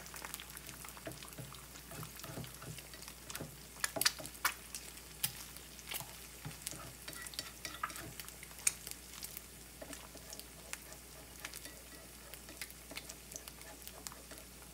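Eggs frying in hot oil in a pan: a steady sizzle scattered with many sharp pops and crackles, which come thickest in the middle seconds.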